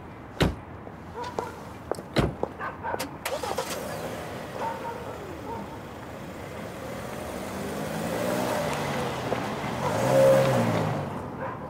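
Two car doors shut with sharp thuds about half a second and two seconds in. Then the car's engine is heard as it pulls away and drives past, growing louder to a peak about ten seconds in and fading again.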